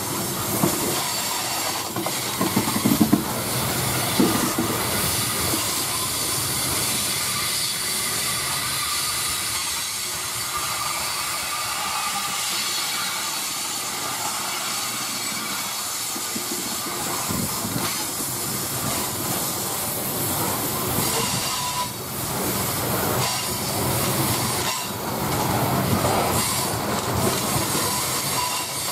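Loaded coal hopper cars rolling past on curved track: a steady rumble of steel wheels on the rails with scattered clanks and a thin high-pitched wheel squeal on the curve.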